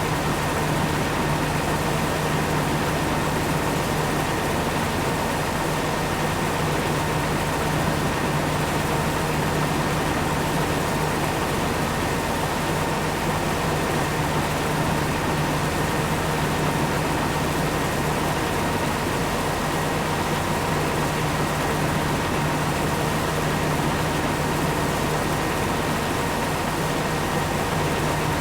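Corn-harvesting farm machinery running steadily: a constant low engine drone with a thin, steady high whine over it.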